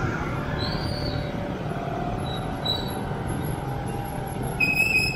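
Busy street traffic: a steady run of motorcycle engines and road noise, with a short high-pitched squeal near the end.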